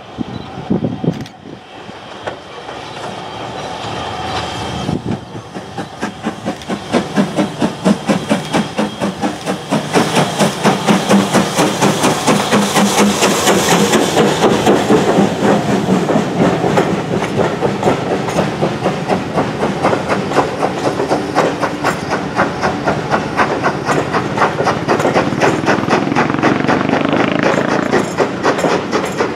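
A steam train approaching and running past, growing steadily louder over the first ten seconds or so, then holding loud with a fast, even beat.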